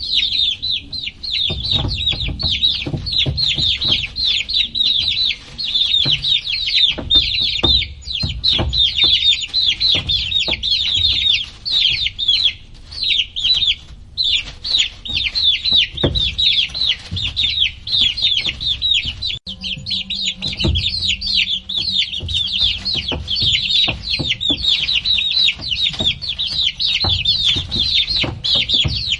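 A crowd of baby chicks peeping nonstop: a dense chorus of many short, high peeps, each sliding down in pitch, with a brief lull about halfway through. Low knocks and rumble sound underneath.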